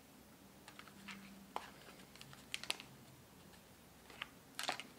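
Faint handling noise: scattered small clicks and taps as a thin steel safety cable is wrapped around a plastic battery box, with a sharper pair of clicks near the middle and a small cluster near the end.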